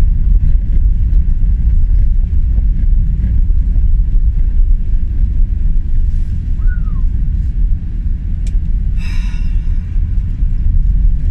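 Recovery van driving slowly along a snow- and ice-covered lane, heard from inside the cab: a steady low rumble of engine and tyres, with a brief hissy noise about nine seconds in.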